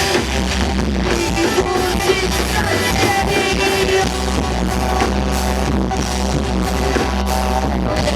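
Live rock band playing, with electric guitars, drum kit and a sustained low bass, loud and continuous.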